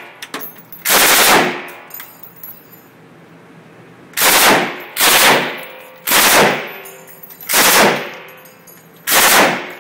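Six single gunshots, each followed by a short ringing decay: one about a second in, then after a pause of about three seconds five more, roughly one a second.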